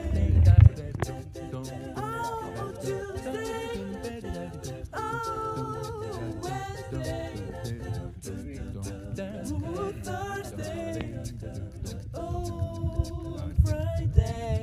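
A song with a singing voice, laid over an uneven low rumble, with a loud low thump at the very start.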